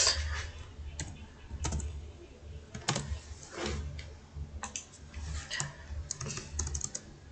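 Keystrokes on a computer keyboard: a handful of separate key presses, irregularly spaced, with a small cluster near the end.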